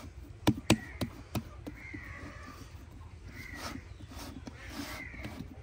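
Four sharp knocks in the first second and a half, then repeated bird calls in the background, about one every second and a half.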